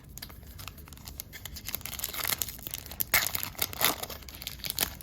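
A trading-card pack wrapper being torn open and crinkled by hand, crackling in quick bursts that grow louder about two seconds in.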